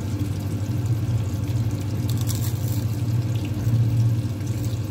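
A brief crisp crunch about two seconds in as a fried tuna spring roll is bitten, over a steady rushing hum that runs underneath.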